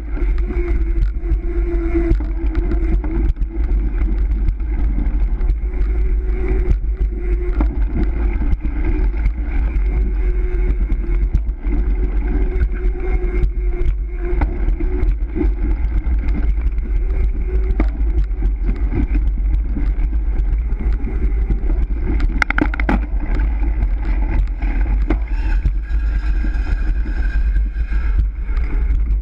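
Wind rushing and buffeting over the microphone of a bicycle-mounted camera at racing speed, with the bike's tyres running on smooth concrete underneath. About 22 seconds in there is a brief high-pitched squeak.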